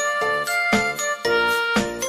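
Background music of bright bell-like chimes over a steady beat, about two beats a second.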